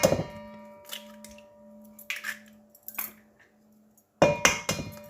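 Eggs being cracked against a bowl: a sharp knock at the start and another about four seconds in, the bowl ringing briefly after each, with fainter clicks between.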